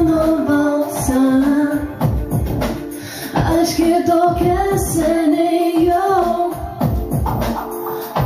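A girl's voice singing a melody over a backing track with a steady beat.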